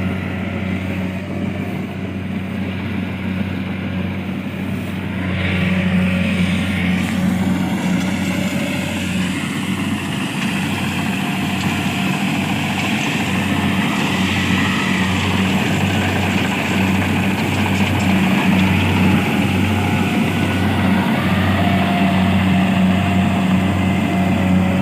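A small engine running steadily at a constant speed, with a continuous low hum. It grows a little louder about six seconds in.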